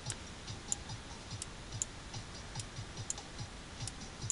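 Faint computer mouse clicks, irregularly spaced at roughly two a second, as spline vertices are placed by clicking and dragging.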